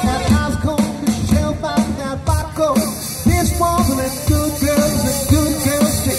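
A live band playing amplified rock music through PA speakers: electric guitar, bass guitar and drums, with a woman singing.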